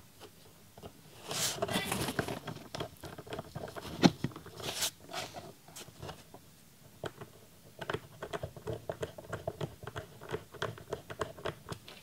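Precision screwdriver turning the small retaining screw that locks an M.2 NVMe SSD onto a PCIe adapter card: quick small clicks and scrapes of metal tool on screw and circuit board. A sharper click comes about four seconds in, then a short pause, then more rapid clicking.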